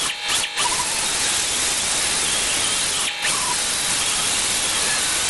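Pneumatic air tool on a compressor hose working the bare-metal firewall of a Mazda B2200 truck, a loud steady hiss of air with brief breaks near the start and about three seconds in as the trigger is let off.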